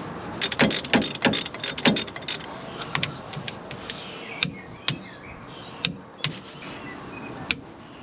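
Sharp metal clicks and clinks of hand tools and brake parts being handled at a car's rear brake caliper: a quick cluster in the first couple of seconds, then single clicks every second or so.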